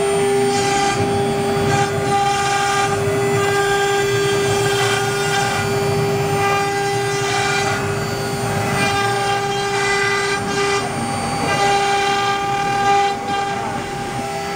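Spindles of a double-head CNC router running with a steady whine while a bit engraves lettering into a wooden sheet. Higher tones shift up and down every second or so as the machine moves, over a noisy bed of cutting sound.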